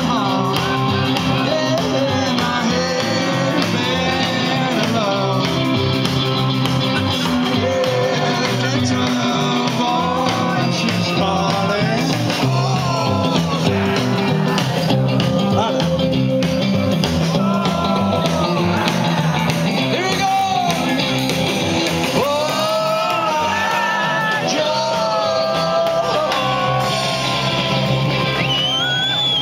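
Live rock 'n' roll band playing with a lead singer, with people close by singing along and shouting.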